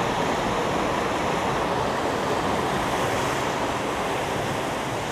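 Steady loud rush of a mountain stream tumbling over rocks in a small waterfall, a dense unbroken hiss of white water.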